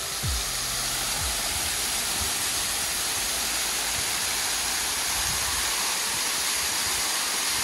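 Small waterfall pouring down a rock face, heard close up as a steady, dense rush of falling and splashing water.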